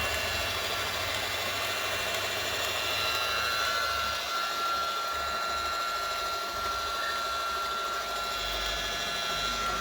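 Electric motor of an epoxy pipe brush-coating machine running steadily, spinning the brush through the pipe on its flexible shaft, with a constant high whine.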